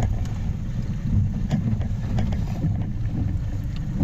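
Wind buffeting the microphone over a steady low rumble aboard a small inflatable boat at sea, with a few faint clicks and knocks.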